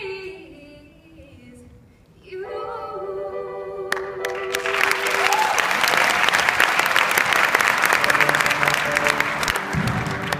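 Madrigal choir singing unaccompanied, a sustained chord; about four seconds in, audience applause breaks out over the singing and carries on, fading near the end.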